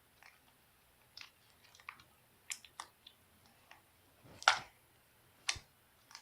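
Old, hardened slime being squeezed and worked in the hands, giving scattered sticky clicks and crackles, with two louder snaps near the end. The slime has dried out and gone stiff.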